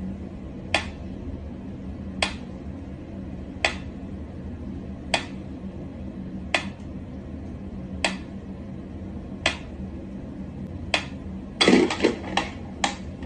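A pyramid-shaped mechanical metronome ticking at a slow, even tempo, one sharp click about every second and a half, over a low steady hum. Near the end a burst of louder knocks and rattles breaks in, then two more clicks.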